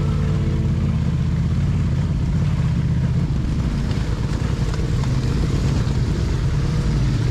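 Motorcycle engine running steadily under way on a rocky dirt trail, heard up close from the bike's own handlebar camera.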